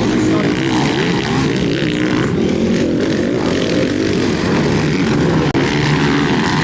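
Several motocross bike engines revving up and down as the riders race the dirt track, their pitches rising and falling and overlapping. About five and a half seconds in, the sound drops out for an instant.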